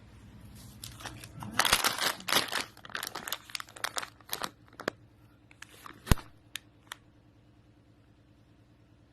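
Matches being handled and struck to light a stove: a run of rough scrapes and rustles, then a sharp click about six seconds in and two lighter ones after it.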